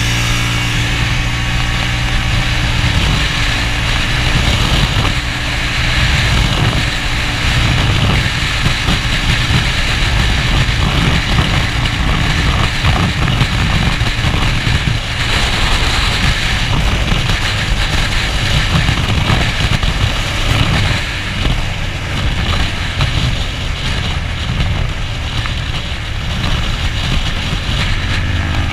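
A Hyosung race motorcycle's engine running hard at racing speed, with wind rushing over the rider's chest-mounted camera.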